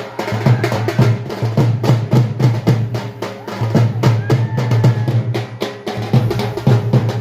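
Music with a steady, fast drum beat over a strong bass line.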